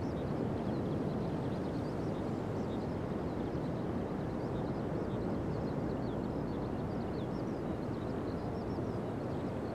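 Pacific Ocean surf breaking on a sandy beach: a steady, even wash of waves. Many faint, short high chirps run over it throughout.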